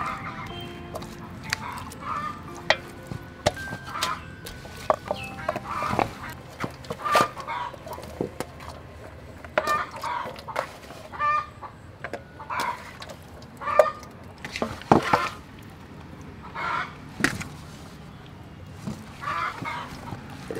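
Domestic chickens clucking over and over, short calls every second or so, with a few sharp clicks mixed in.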